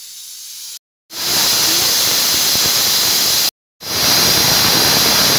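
Aluminium pressure cooker whistling, its weighted valve letting out steam in a loud, steady hiss, broken twice by a moment of dead silence. The cooker has come up to pressure, the signal counted to tell when the dal is cooked.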